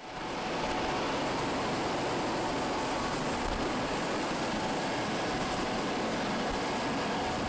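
A helicopter's turbine engine running on the ground: a steady high whine over a steady broad rushing noise.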